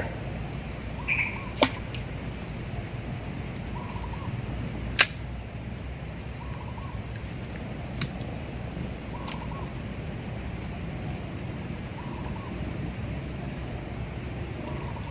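Steady riverside background noise with three sharp clicks, the loudest about five seconds in, and a faint short sound recurring every few seconds.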